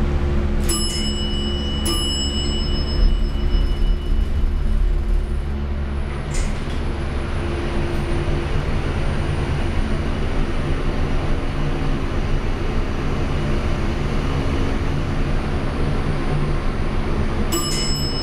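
Hydraulic elevator car bell strikes twice, the two-stroke signal for down travel, then a knock as the doors close and the car descends over a steady low hum with a faint high whine. Near the end the bell strikes again as the car arrives.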